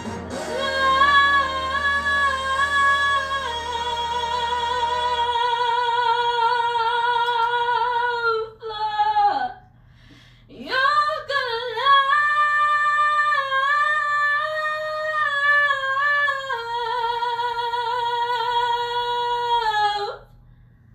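A young woman singing long held notes with vibrato into a microphone, in two long phrases with a breath between them about halfway through; each phrase ends in a downward slide.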